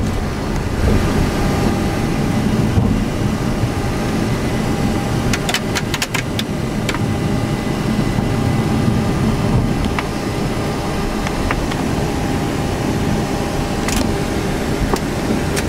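Boeing 737 flight-deck noise during the landing: a steady rumble of the engines and airflow. A cluster of sharp clicks comes about five to seven seconds in, with single clicks near the end.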